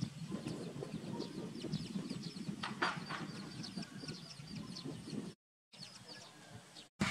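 Chickens clucking, with many short high peeps, over steady low background noise. The sound cuts out briefly twice near the end.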